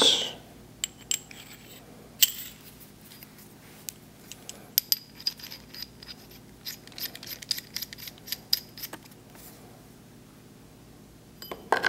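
Steel clamp-kit studs being threaded into a coupling nut by hand: scattered small metallic clicks and light ringing clinks, busiest in the middle.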